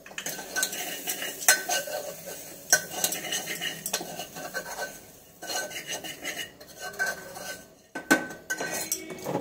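Metal spoon stirring in a metal cooking pot: irregular scraping and clinking against the pot's sides and bottom, some strokes making the metal ring briefly.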